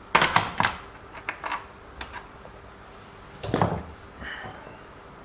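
Sharp clicks and taps of small hard plastic and metal parts being handled while an RC car's suspension arm is worked on: a quick cluster of clicks at the start, a few lighter ticks, then another cluster about three and a half seconds in.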